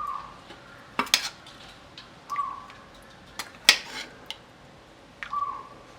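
Metal spoon clinking and scraping against a metal pot and bowl while chicken gravy is spooned over a porotta layer: a few sharp clicks and three short ringing scrapes.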